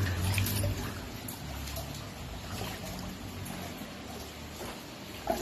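Rainwater flooding a shop floor, trickling and lapping, under a low steady hum that fades out past the middle. A short, sharp sound near the end.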